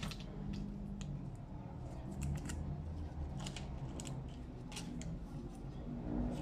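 Paper masking tape being torn and crinkled between the fingers as it is wrapped around a stripped copper wire: a scattered string of small, sharp crackles and clicks.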